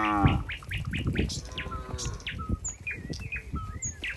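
Small birds chirping repeatedly in short, quick, downward-sliding notes, with a cow's moo ending just after the start.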